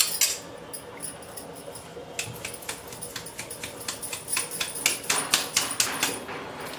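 Stainless steel sieve of ground niger seed powder being rubbed and shaken over a steel bowl: the powder rustles through the mesh, and the metal rim gives irregular light taps and clicks against the bowl. The taps come faster about five seconds in.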